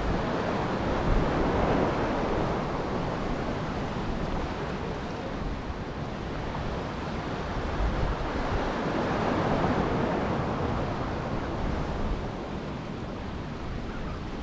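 Ocean waves washing and surging, with wind rumbling on the microphone. The wash swells about a second in and again around nine seconds.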